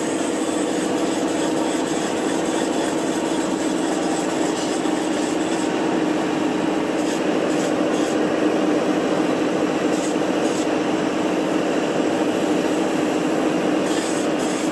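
Spray-foam insulation rig running while the gun sprays foam onto a wall: a steady hiss over a constant machine hum.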